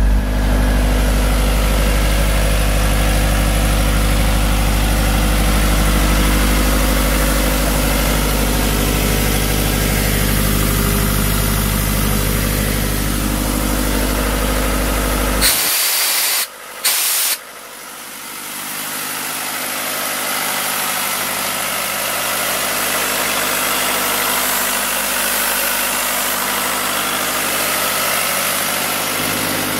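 Atlas Copco XAS towable air compressor's diesel engine running at a steady idle. A little past the middle the sound breaks off abruptly with a brief burst of noise, then the engine carries on steadily with less low rumble.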